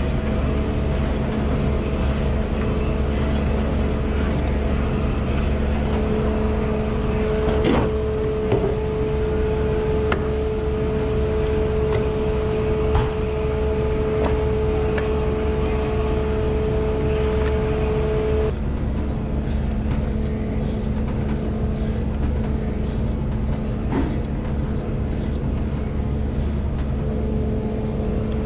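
Steady mechanical hum of running kitchen machinery, several fixed tones over a constant noise, with a few light clicks and knocks of work; one of the higher hum tones cuts out about eighteen seconds in.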